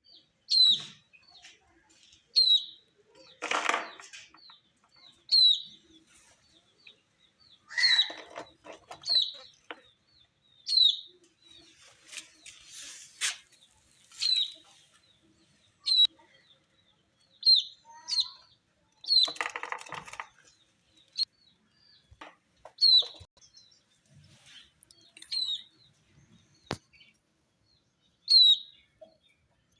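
Baby chicks peeping: single high, falling cheeps every second or two, with a few louder bursts of rustling and scuffling.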